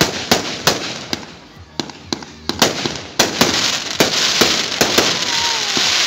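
Ruggieri aerial fireworks display: a quick, irregular series of sharp bangs as shells burst overhead. From about three seconds in, a dense crackling hiss fills the gaps between the bangs.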